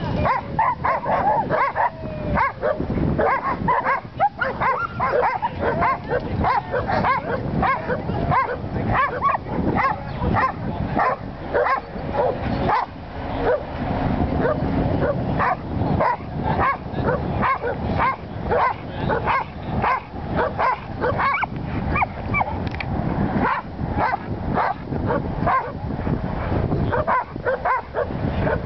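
Welsh Corgi barking rapidly and over and over while herding, mixed with sheep bleating.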